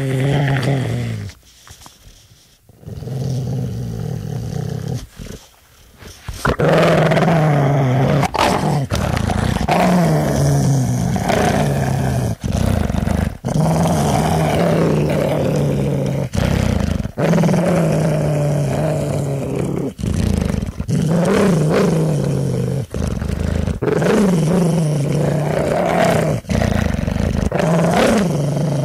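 Deep growling and snarling in phrases of one to two seconds with short breaks, choppy for the first few seconds and then loud and nearly unbroken.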